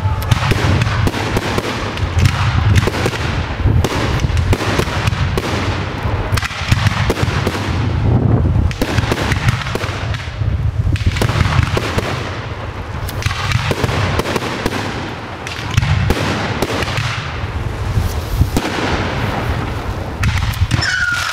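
Professional fireworks display: aerial shells launching and bursting in a dense, near-continuous barrage of bangs.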